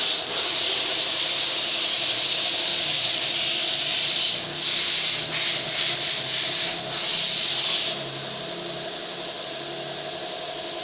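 High-pressure spray hissing steadily on the engine, cut off briefly several times in quick succession about halfway through, then shut off at about eight seconds. A steady low machine hum carries on underneath.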